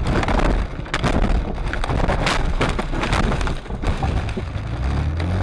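A car crashing and tumbling off the road into snow: repeated bangs and crunching of the bodywork and windscreen glass, with snow and debris scraping over the car. Near the end a steady low drone sets in.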